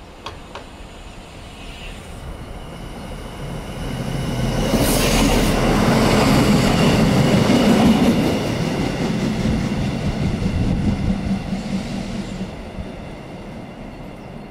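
Passenger multiple-unit train passing close by along the station track. Its rumble and wheel noise swell to their loudest as the cab goes by, about five to eight seconds in, with a brief hiss near the peak. The noise then fades gradually as the train runs on along the platform.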